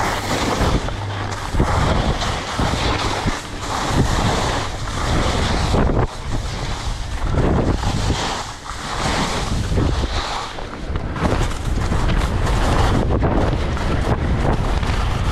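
Wind buffeting the microphone over the hiss and scrape of skis carving through soft, chopped snow. The sound turns steadier over the last few seconds as the skis run smoothly on packed snow.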